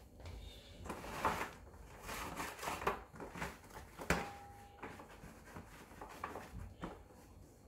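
A wet rag scrubbing and wiping the inside of a dustbin's inner bucket, in irregular rubbing strokes with light knocks of the bucket. A sharp knock about four seconds in is followed by a brief squeak.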